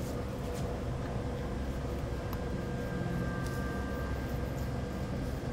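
Steady low background hum and rumble with a faint constant mid-pitched tone.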